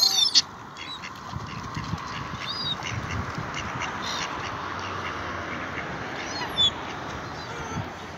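A flock of gulls and mallard ducks on a pond calling: a loud burst of high, squealing calls at the start, then scattered calls over steady background noise.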